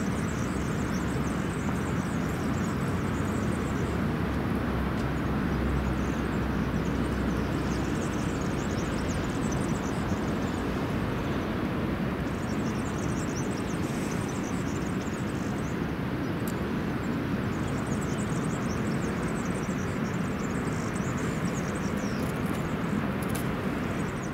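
Steady outdoor noise of wind and the Brenta river's flowing water, with a high twittering that comes and goes every few seconds.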